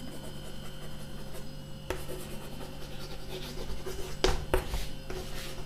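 Chalk scratching and tapping on a chalkboard as a sentence is written, with a few sharper taps in the second half, over a steady low hum.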